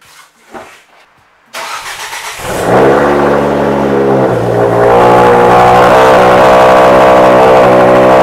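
Ford Focus RS Mk2's turbocharged 2.5-litre five-cylinder engine starting. After a few faint clicks, it cranks about a second and a half in, catches with a flare of revs, then settles to a steady idle.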